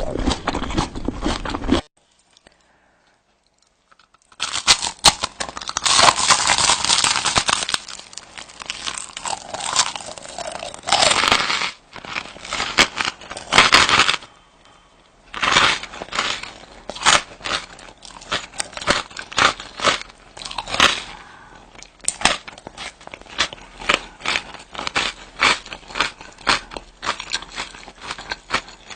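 Close-up eating sounds: crisp bites and chewing crunches at an uneven pace. A few seconds in there is a dense stretch of crinkling and tearing.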